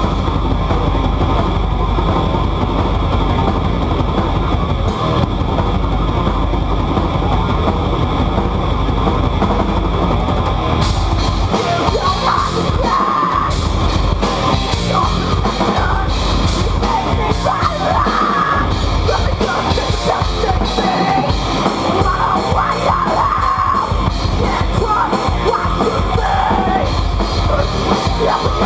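Live rock band playing loud and without a break: electric guitars, bass and a drum kit.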